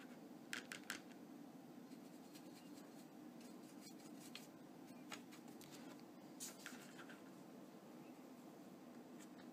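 Near silence with faint, short scratches of a small brush-and-sponge weathering applicator working dry pigment onto a plastic toy blaster. Three come in quick succession about half a second in, and a couple more follow later.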